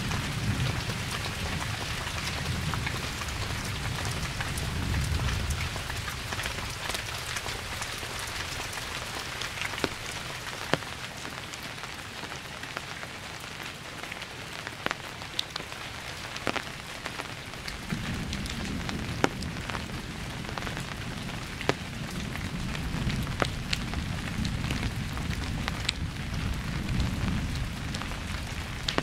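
Steady rain falling, with individual drops ticking sharply close by. Thunder rumbles low at the start and dies away, then a new long roll of thunder begins about two thirds of the way through and carries on.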